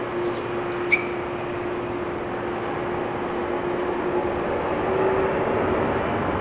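Embraer E190's twin GE CF34-10E turbofan engines on final approach: a steady rushing noise with a single steady droning tone, growing a little louder near the end. A short sharp click about a second in.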